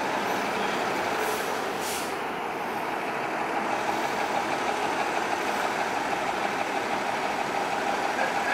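Diesel engine of a KME Predator fire engine idling steadily alongside an ambulance, with a short hiss about two seconds in.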